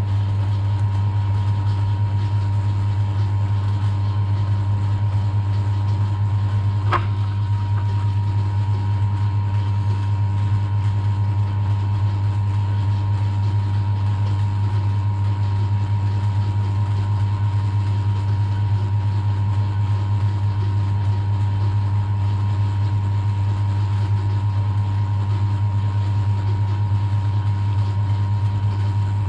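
Milling machine running steadily, a low hum with a steady high whine over it; a single sharp click about seven seconds in.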